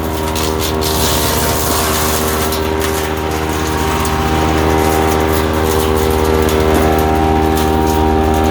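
Woodchipper's small gasoline engine running steadily at speed, with a scatter of short crackles over it from a few seconds in.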